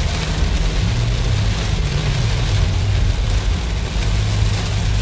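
Heavy rain pelting a car's roof and windshield, heard from inside the moving car's cabin as a steady hiss over a low rumble of engine and road.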